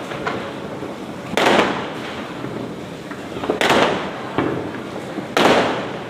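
Diwali firecrackers going off: three loud bangs about two seconds apart, each trailing off briefly, with fainter pops in between.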